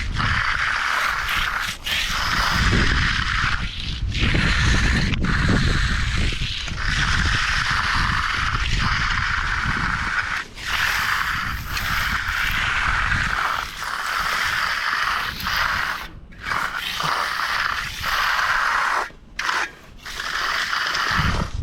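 A hand tool scraping over fresh concrete in long, repeated strokes, with brief breaks between them.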